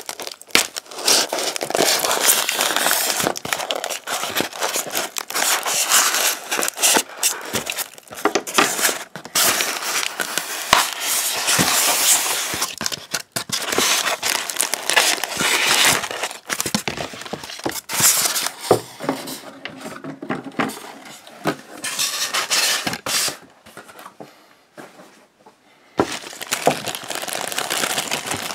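Packaging being handled by hand: polystyrene foam packing blocks scraping and rubbing against each other and the box, with crackling plastic wrap. The rustling eases off briefly past the middle, then a clear plastic bag crinkles loudly near the end.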